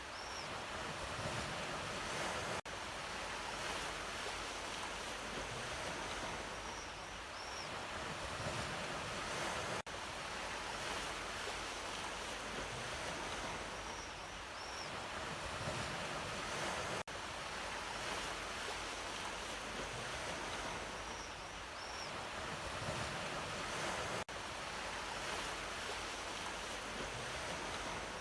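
Sea waves washing steadily on the shore, swelling and easing gently. There are very short dropouts about every seven seconds, and a faint high chirp repeats at the same spacing.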